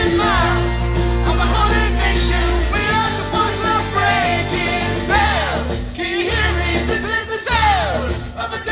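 Live acoustic rock band playing, with a singing voice over held low bass notes.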